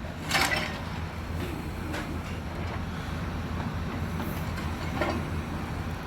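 A large engine running steadily at a low pitch, with a sharp knock or clank about half a second in and another about five seconds in.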